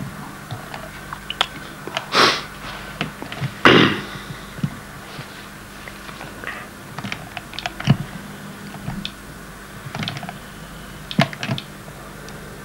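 Scattered light clicks and knocks of small objects being handled, with two short noisy bursts about two and four seconds in, over a low steady hum.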